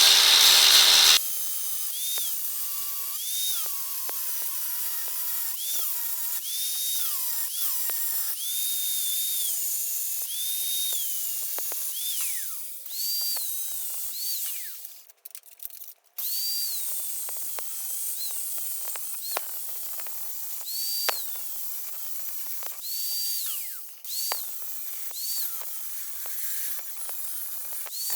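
Small high-speed power tool run in many short bursts, each a high whine that climbs as it spins up and falls away as it stops, louder and rougher for about the first second.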